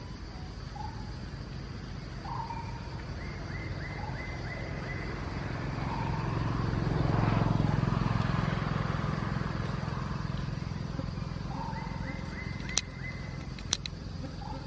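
Forest ambience: short animal calls repeat every few seconds, a rapid ticking trill comes twice, and a low rumble swells and fades around the middle. A few sharp clicks come near the end.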